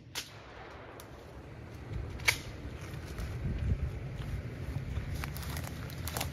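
Footsteps pushing through brush and dry leaves, with scattered twig cracks and rustles; the sharpest crack comes about two seconds in and a run of smaller ones near the end. A low rumble of wind on the microphone runs underneath and grows from about two seconds in.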